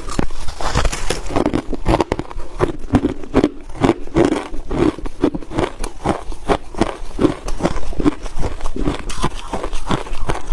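Crushed ice being bitten and chewed close to the microphone: dense, loud crunching and cracking, with a steady chewing rhythm of about two bites a second.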